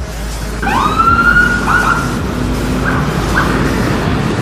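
A vehicle siren rises in pitch and holds for about a second and a half, then gives a few short blips, over a steady rumble of city traffic.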